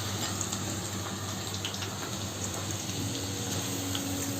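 Chopped ginger, garlic and green chilli sizzling steadily in hot sesame oil in a wok, left to fry without stirring.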